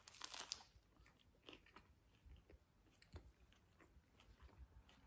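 A bite into a crunchy breaded chicken burger, a short crisp crunch at the start, followed by quiet chewing with faint scattered clicks.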